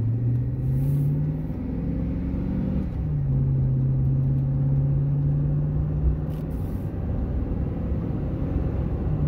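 A warmed-up 2005 GMC Sierra 1500's 5.3-litre V8 pulling the truck under way. The engine note rises, drops suddenly about three seconds in as the automatic transmission upshifts, then holds steady while the truck cruises.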